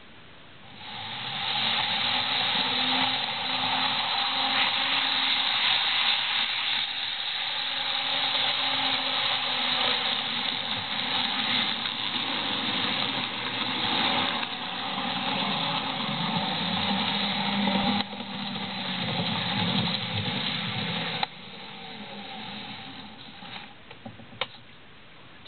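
Model electric train's motor whirring and its wheels rattling over the track and pointwork as it pulls away from the station. The noise rises about a second in, runs steadily with a low hum, drops off in two steps near the end, and a few sharp clicks follow.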